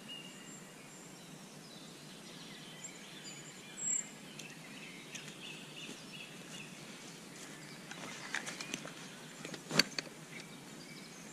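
Quiet forest ambience with scattered faint bird chirps and a steady background hiss. Near the end come a few small clicks and one sharper snap, the loudest moment.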